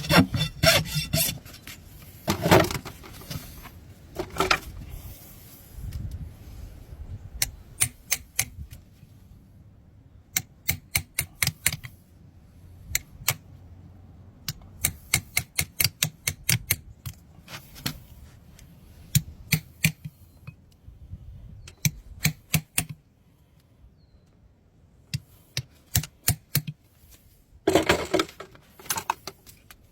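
Hand tools working a horse's hoof: clusters of quick, sharp clicks and short scrapes as dirt and hoof horn are pared and scraped away, with denser scraping bursts about two seconds in and again near the end.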